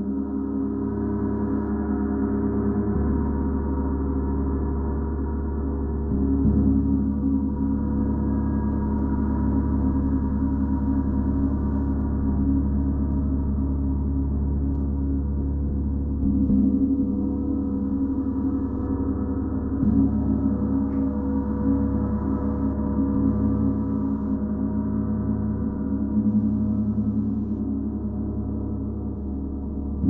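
32-inch Paiste Symphonic gong played as a continuous wash of many overlapping, sustained tones, swelling again every several seconds as it is struck softly anew.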